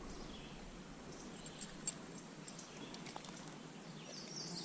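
Faint streamside ambience: a low steady hiss with a few small clicks, and a bird chirping near the end.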